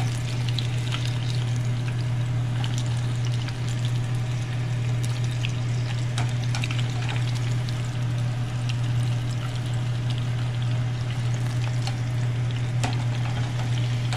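Panko-breaded shad fish balls deep-frying in hot oil, a steady sizzle with scattered small pops and crackles, over a steady low hum.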